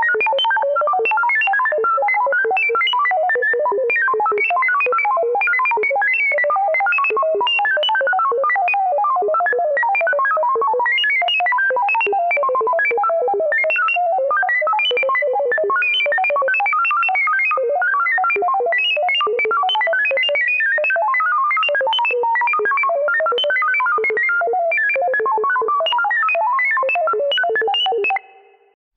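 Vintage 1950s-style sci-fi spaceship computer sound effect: a rapid, random stream of short electronic bleeps at jumping pitches, at a steady level, cutting off suddenly near the end.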